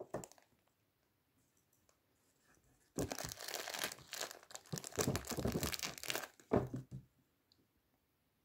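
Wrapped tea bags in paper sachets and cellophane packs crinkling and rustling as a hand rummages through them, for about four seconds in the middle, after a brief crackle right at the start.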